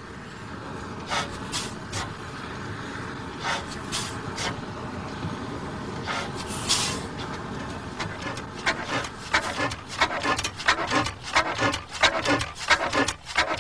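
An 1895 Hornsby-Akroyd hot-bulb paraffin engine turning over slowly after being started by hand on its flywheel: scattered hissing puffs, then from a little past halfway a quick run of sharp mechanical clicks and clanks, several a second.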